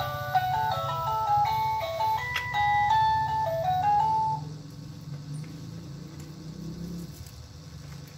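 Electronic toy melody from a baby walker's music tray: a simple beeping tune of stepping notes that stops about four seconds in, over a low steady hum.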